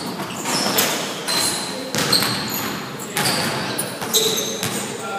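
Basketball dribbled on a gym floor, several hard bounces about a second apart, with short high sneaker squeaks on the court between them.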